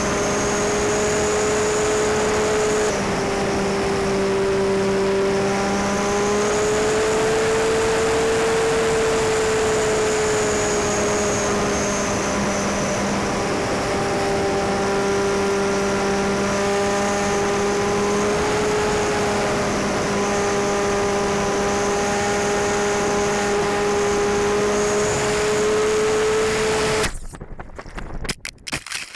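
RC airplane's electric motor and propeller whining steadily in flight, heard from an onboard camera with air rushing past, the pitch rising and falling a little with throttle. Near the end it breaks into a few knocks as the plane crashes into the grass, then cuts off.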